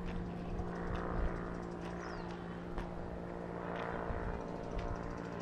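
A steady mechanical hum with several fixed pitches, with a few soft clicks and a short, high falling chirp about two seconds in.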